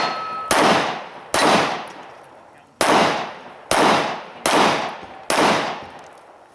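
A string of six pistol shots, about a second apart with a longer gap after the second shot, each trailing off in a long echo.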